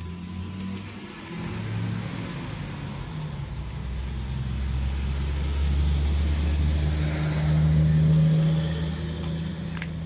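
An RC rock crawler's electric motor and geared drivetrain whirring as the truck crawls over rocks. Its pitch shifts with each change of throttle, and it grows louder and steadier in the second half.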